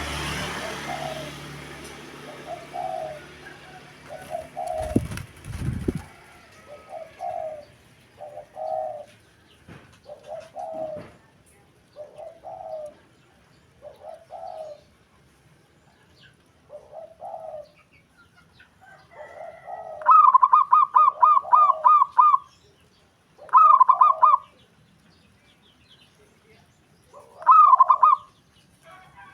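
Zebra doves (perkutut) cooing. Short low coos repeat about every second and a half, then about twenty seconds in come three loud, rapid staccato cooing phrases. There is a burst of noise at the start and two low thumps about five seconds in.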